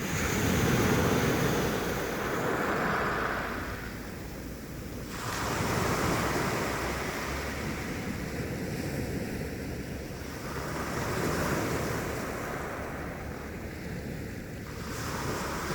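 Sea waves washing onto the shore, the surf swelling and falling back every few seconds.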